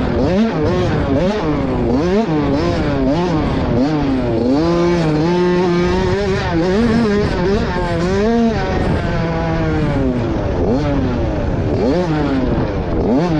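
Dirt bike engine heard from on the bike, revving up and dropping back over and over as the rider works the throttle through the gears over the track's jumps and bumps.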